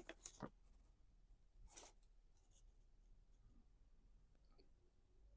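Near silence, with a few faint brief rustles of paper being handled in the first half-second and again about two seconds in.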